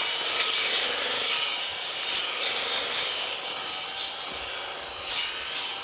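Battery-powered cutting tool working through brush and wood, a steady rasping cut over a faint electric-motor whine.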